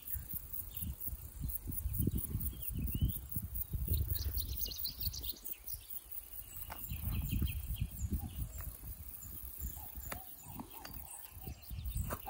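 Wind buffeting the microphone in gusts across open grassland, with small birds chirping and trilling over it. A fast, high-pitched pulsing runs through the first few seconds.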